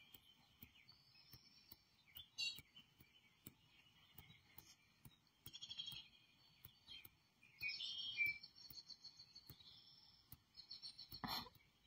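Small songbirds chirping and singing, played faintly through a television's speakers, in repeated short phrases with the loudest bursts about two and a half, six and eight seconds in. A short, broad noise sounds near the end.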